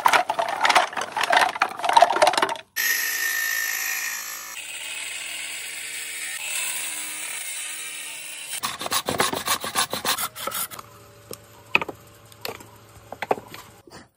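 Animal horn being cut and worked: first the crackly rustle of a jute sack, then a steady whirring hiss of a motor-driven cutting disc on the horn lasting several seconds, then quick irregular scraping and clicking of hand work that goes on to the end.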